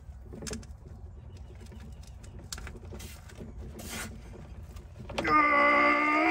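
A man straining hard, with a long held groan starting about five seconds in, as he forces a breaker bar against the crankshaft pulley of a seized engine. Before the groan there are only faint scattered clicks over a low rumble.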